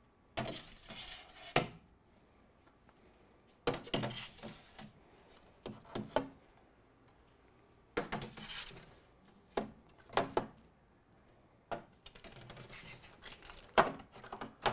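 Metal trays sliding onto the metal shelves inside a Harvest Right freeze dryer's chamber: several separate scraping slides with clinks of metal on metal, and short quiet gaps between trays.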